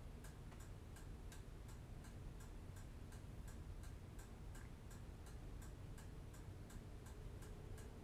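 Faint steady ticking, about four evenly spaced ticks a second, over a low room hum.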